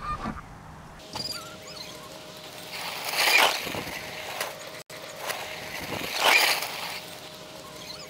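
A sled hissing and scraping over snow as it slides down the slope, swelling loud as it nears and then fading; this happens twice.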